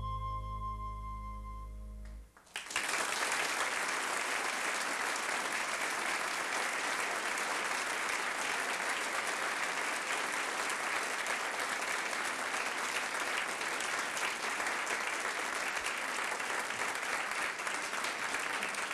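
The last held chord of a song, flute over a low bass note, ending about two seconds in. An audience then applauds steadily.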